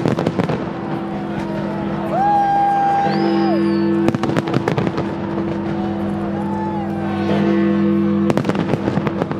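Large aerial fireworks bursting in three rapid volleys of sharp bangs: one right at the start, one about four seconds in and one near the end. Under them runs music with steady held chords, and the crowd's voices rise and fall between the volleys.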